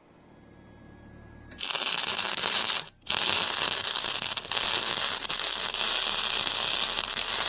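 Flux-core wire-feed welder arc crackling loudly as a bead is laid with .030 flux-core wire. It starts about a second and a half in, breaks off briefly near the three-second mark, then runs steadily to the end.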